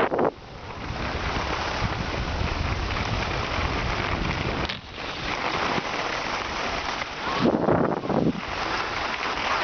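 Wind buffeting the microphone along with the hiss of sliding over packed snow: a steady rushing noise that dips briefly a little before halfway and swells for a moment near the end.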